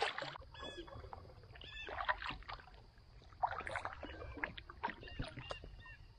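Canoe being paddled on calm water: paddle strokes with swirling and dripping water and scattered light knocks, with a few short high chirps in between.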